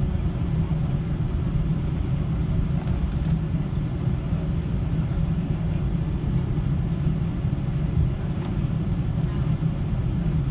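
Airliner cabin noise while the plane taxis: a steady low rumble of engines and rolling, heard from inside the cabin.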